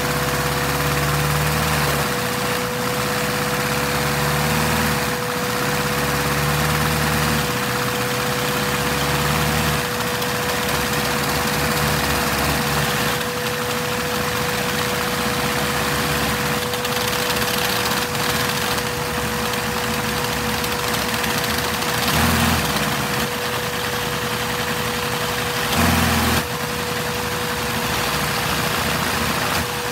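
Lego vacuum engine (a shared-crank-valve inline-four run on vacuum-cleaner suction) running steadily while being shifted up through a 10-speed twin-stick transmission. Its low running note changes in steps several times as the gears are changed. A steady whine runs underneath.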